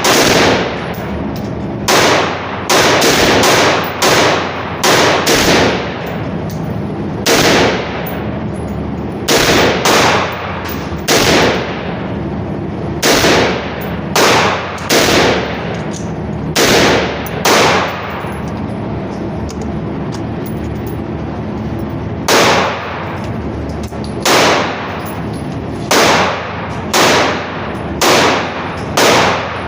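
Gunshots fired one at a time at a quick, uneven pace, roughly one a second, about two dozen in all, with a pause of several seconds midway. Each shot is followed by a short ringing tail.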